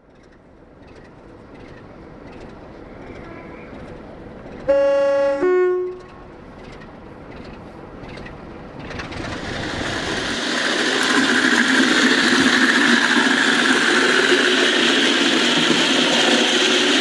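A train horn sounds two notes about five seconds in, a lower one and then a higher one. A train's running noise then builds, growing louder, and carries on steadily.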